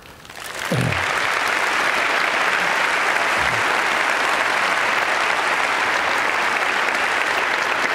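Audience applauding: the clapping builds up over the first second and then carries on steadily. Two short voice-like calls from the crowd stand out, one near the start and one about three and a half seconds in.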